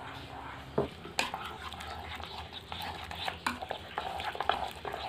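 A spoon stirring and scraping in a small non-stick electric cooking pot of egg and vegetables in a little water, with scattered clinks and knocks against the pot, a few of them sharper.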